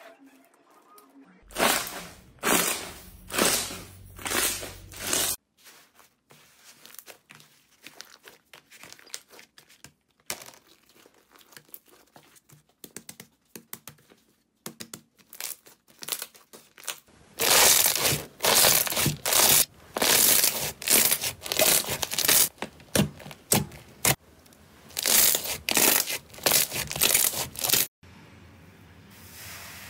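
Slime being stretched and squished by hand, making a run of crackling, popping bursts. The loudest spells come about two seconds in and again from a little past halfway until near the end, with fainter scattered clicks between them.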